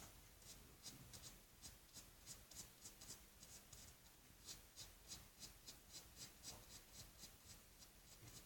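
Faint, quick strokes of a paintbrush's bristles dragging over acrylic paint on a canvas sheet, about three a second, as the paint is worked and blended.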